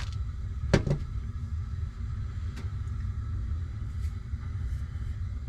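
A steady low rumble, with one sharp knock about a second in and a few faint clicks after it.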